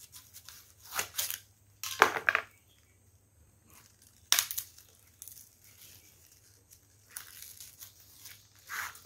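Hands of green bananas being twisted and torn off the bunch's stalk by hand: about half a dozen short cracking, tearing sounds with quiet between them.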